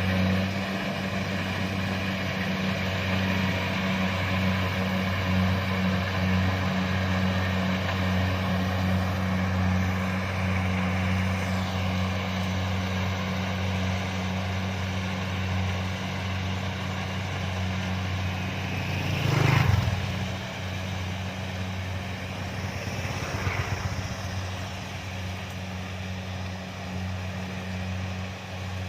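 Kubota DC-70 combine harvester's diesel engine running at a steady drone, with a brief louder rush of noise about twenty seconds in and a smaller one a few seconds later.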